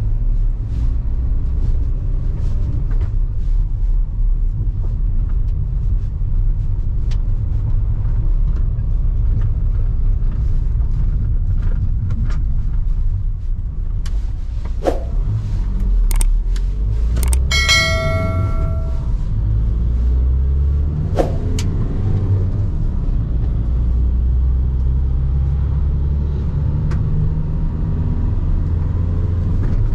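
Cabin noise of a VW T5 Transporter's 84 PS 1.9 TDI four-cylinder turbodiesel pulling the van at low road speed, a steady low rumble of engine and tyres heard from inside the cab. A few sharp clicks and a short ringing tone come about halfway through.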